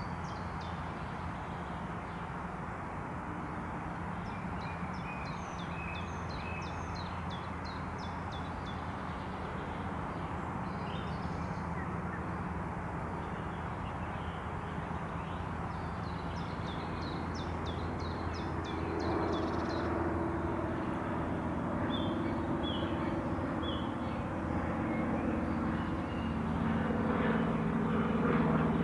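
Outdoor ambience of a steady low rumble of distant traffic, with small birds chirping in short clusters. About two-thirds of the way in, a low engine drone sets in and grows louder to the end.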